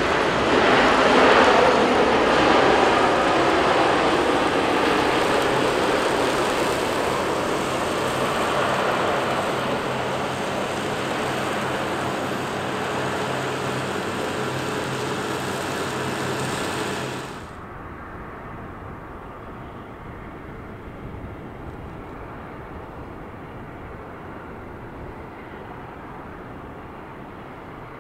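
Air Canada Boeing 777's GE90 engines roaring in reverse thrust during the landing rollout, with a steady low hum under the roar, loudest at first and slowly easing off. About 17 seconds in the roar cuts off abruptly, leaving a much quieter, duller rumble.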